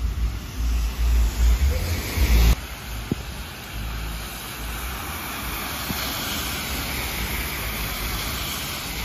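Rain on a wet street, with wind gusting loudly against the microphone for the first two and a half seconds. After that, a steady hiss of rain falling on pavement and water running along the curb.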